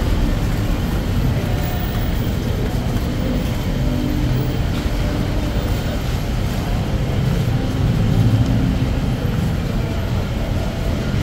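Steady low rumble of moving vehicles, swelling slightly about eight seconds in.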